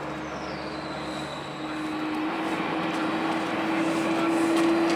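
Boeing 767-300ER's twin turbofan engines spooling up for takeoff, growing steadily louder. A steady hum strengthens under a high whine that slides down in pitch in the first second and then holds.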